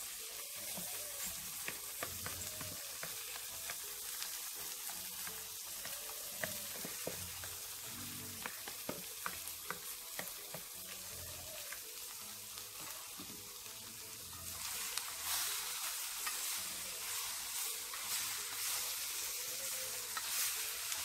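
Fish frying in curried garlic oil in a pot, sizzling steadily, while a spoon stirs and scrapes the pot with frequent light clicks. The sizzling gets louder about two-thirds of the way through.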